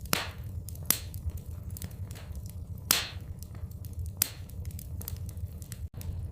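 Wood fire in a fireplace crackling, with irregular sharp pops, the loudest about one and three seconds in, over a steady low rumble.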